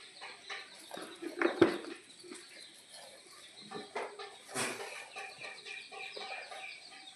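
Desi chickens clucking, with many short calls scattered throughout and a louder sound about a second and a half in.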